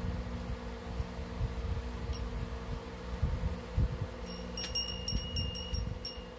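Metal tube bell on a chain, rung by an eclectus parrot gripping and shaking it: a quick run of about eight metallic clinks near the end, each ringing at the same high pitch. A steady low hum runs underneath.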